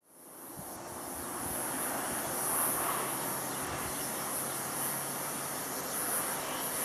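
Airbus A321's twin CFM56 turbofans at take-off power, heard from a distance as steady rushing jet noise with a low rumble while the jet rotates and lifts off. A high steady buzz sits above it. The sound fades in from silence at the very start.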